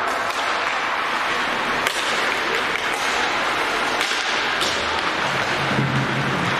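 Ice rink during a hockey warm-up: a steady wash of arena noise broken by a few sharp cracks of sticks hitting pucks and pucks striking the boards. Arena music comes in about five seconds in.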